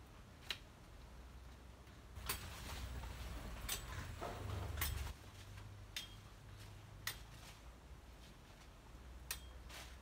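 Large knife or machete chopping at a banana plant's stem: about seven sharp, short chops at uneven intervals.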